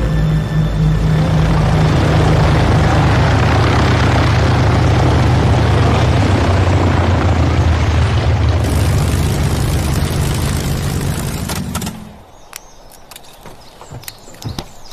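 Single-engine propeller light aircraft engine and propeller running steadily and loudly, then cutting off abruptly about twelve seconds in. A few small clicks and knocks follow.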